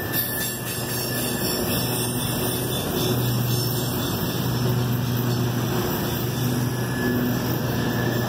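Scag Tiger Cat II zero-turn mower's engine running steadily under mowing load, a constant low hum over a rushing noise.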